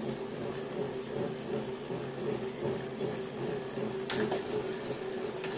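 Tacx Neo 2T direct-drive smart trainer running under a pedalling rider: a steady mechanical hum with a fine buzzing vibration from its simulated dirt-road feel. A sharp click about four seconds in.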